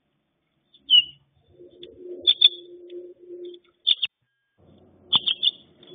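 Small finch giving short, high chirps: one about a second in, quick pairs near the middle, and several in a row near the end. A low, steady drone sounds underneath for a couple of seconds in the middle and again near the end.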